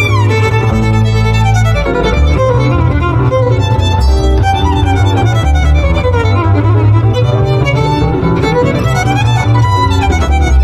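Jazz violin playing a bowed melody line with slides up and down in pitch, over a double bass accompaniment.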